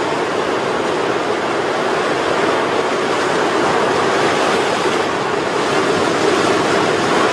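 Ocean surf washing and breaking over shoreline rocks in a steady, continuous rush.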